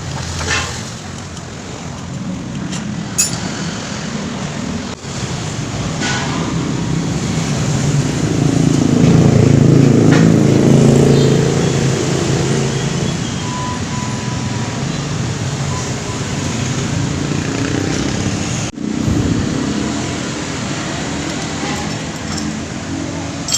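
Motor-vehicle traffic running steadily, louder for a few seconds in the middle as a vehicle passes, with a few sharp clicks.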